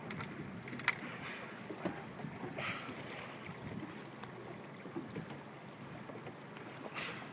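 Atlantic bottlenose dolphins surfacing and blowing: short, breathy puffs of air through the blowhole, about a second and a half in, near three seconds and again near the end. A sharp tap about a second in is the loudest moment, over a low wash of water and wind.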